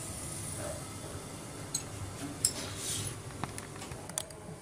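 A covered kadhai of masala gravy cooking on a gas burner: a low steady hum with a few faint ticks and pops spread through it.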